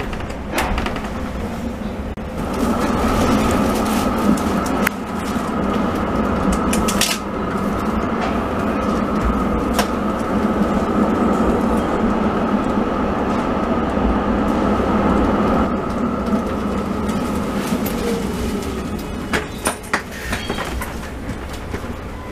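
Electric tram running along street track, heard from inside the driver's cab: a steady rumble with a whine from about two seconds in to about two-thirds through, then a few sharp clicks near the end.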